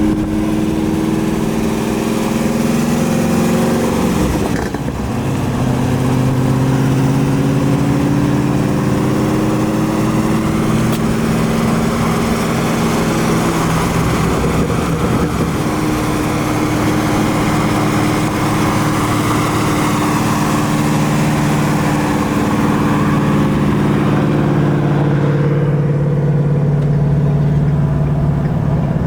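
A car's engine running under way, its note holding steady and then stepping to a new pitch every few seconds as the speed changes, over road noise.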